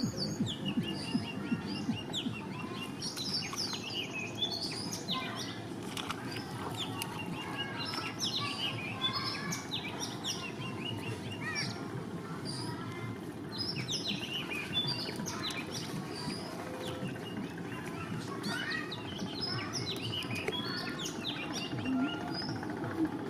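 Many small birds chirping continually, in quick short calls that sweep up and down, over a steady low noise.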